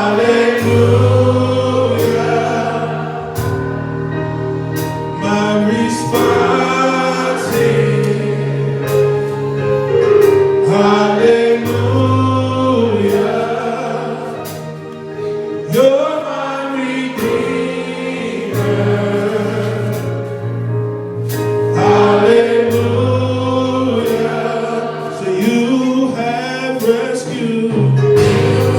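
Gospel choir singing with a band, sustained bass notes and a steady beat.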